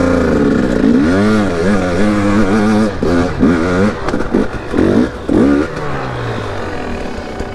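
250 cc two-stroke KTM dirt bike engine revving in repeated throttle bursts, its pitch rising and falling again and again as it is worked through mud, then settling to a lower, steadier note near the end.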